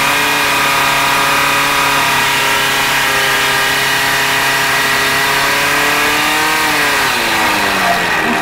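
Portable fire pump's engine running flat out at a steady high speed, driving water through the attack hoses. Its revs fall away a little before the end.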